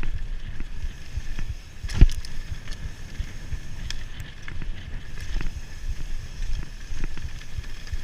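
Mountain bike descending a dirt singletrack at speed: a steady low rumble of tyres on dirt, with many small rattles and knocks from the bike over the bumps and one hard knock about two seconds in.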